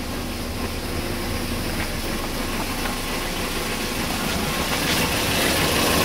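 Toyota Previa's inline-four engine idling steadily and smoothly just after starting, getting a little louder near the end.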